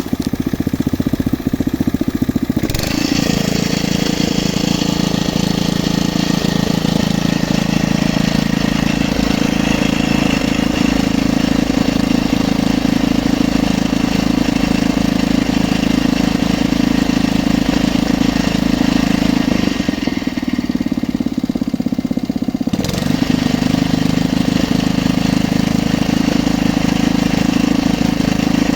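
Engine of a geological exploration drilling rig running steadily. A higher, hissing mechanical noise joins about three seconds in, drops away around twenty seconds and comes back a few seconds later.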